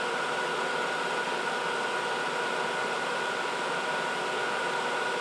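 Solder fume extractor fan running steadily: an even hiss with a faint steady whine.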